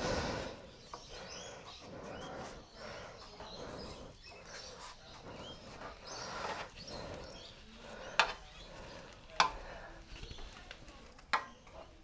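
A rubber heated grip being forced along a motorcycle handlebar by hand, with rubbing and handling noise and effortful breathing. Three sharp clicks about eight, nine and a half and eleven seconds in.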